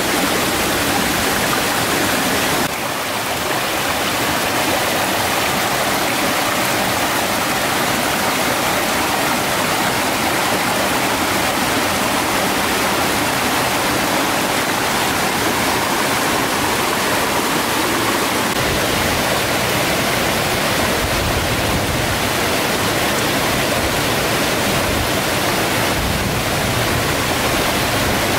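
A rocky stream rushing over small cascades: a steady, loud water noise that barely changes, dipping slightly about three seconds in.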